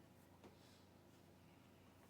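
Near silence: room tone, with a faint single click about half a second in.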